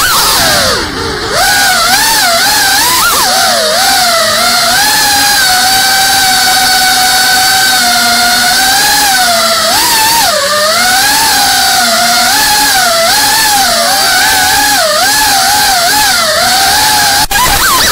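Brushless motors and propellers of a Geprc Cinelog 35 FPV cinewhoop drone, heard from its onboard camera: a loud high whine that rises and falls with the throttle, dipping briefly about a second in. A sharp knock near the end.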